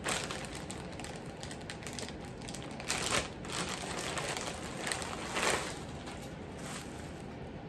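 Wig packaging bag crinkling and rustling as it is handled, with a few brief, louder crinkles about three and five and a half seconds in.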